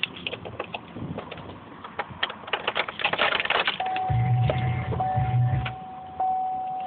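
Clicks and rattling, then a steady electronic warning tone from the dash begins, and the 2009 Chevy Silverado 1500's engine is cranked and started about four seconds in.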